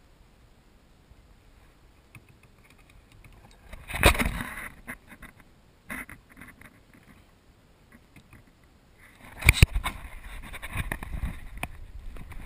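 Water splashing and knocks on a kayak, in two loud bursts about four and nine and a half seconds in, with a single sharp knock between them and choppy splashing after the second burst.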